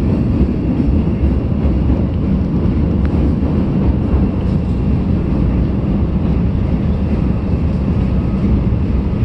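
Chicago 'L' train running at speed, heard from inside the car: a steady low rumble of wheels and rails.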